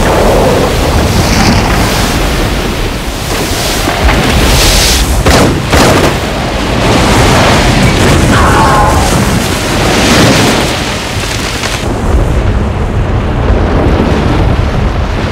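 Avalanche in a film sound mix: a loud, continuous rumble of sliding snow and ice, with a few sharp cracks and impacts about five to six seconds in.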